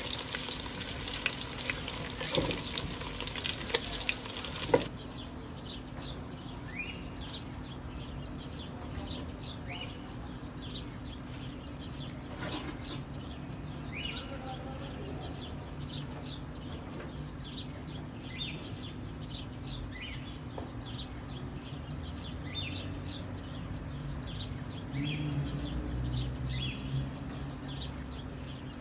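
Chicken wings sizzling in hot oil in a pot while a spoon turns them, for about the first five seconds. Then the sound cuts to a quieter steady low hum, with a bird chirping in short falling notes every second or two, and a little clatter of cookware near the end.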